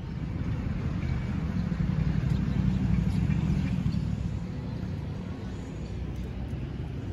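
Low outdoor rumble that swells to its loudest a few seconds in, then eases.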